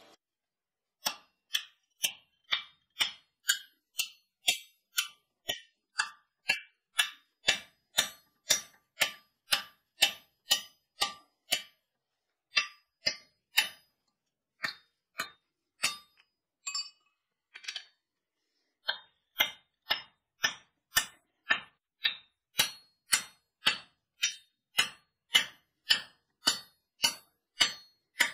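Hand hammer striking a steel drift in the punched eye of a hot forged hammer head on the anvil: steady sharp blows about two a second, with two short breaks.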